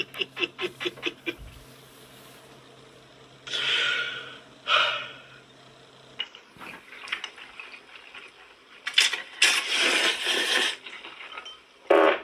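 Bursts of rustling and clattering from dishes and food packaging being handled, after a short run of rhythmic vocal pulses at the start.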